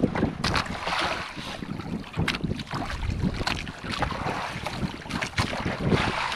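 Wind buffeting the microphone over water sloshing against a small boat, with scattered light knocks.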